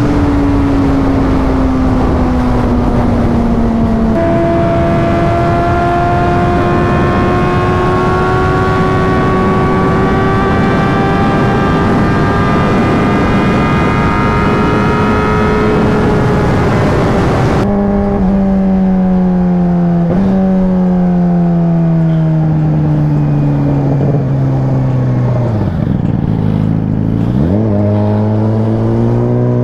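Yamaha R6 sport bike's inline-four engine running at highway speed with wind rushing past. The engine note climbs slowly under gentle acceleration, then falls away in steps as the bike slows. Near the end the revs dip low and sweep quickly back up.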